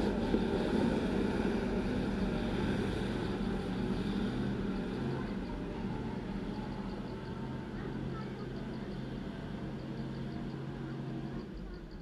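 A bus engine labouring up a steep dirt grade, running steadily under load and slowly fading as the bus climbs away.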